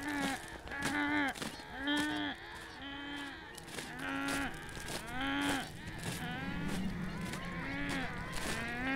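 A person's voice making a short call that rises and falls in pitch, repeated over and over about once a second, like a vocal sound effect.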